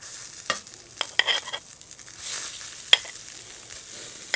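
Raw pork breakfast sausage links sizzling in a hot cast-iron skillet as they are laid in. The steady hiss swells about halfway through, and the metal tongs click sharply against the pan several times.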